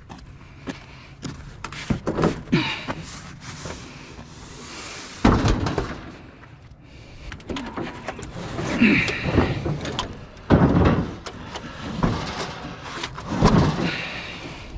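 Knocks, scrapes and clatter of scrap being handled, with a heavy thump about five seconds in and another about ten seconds in.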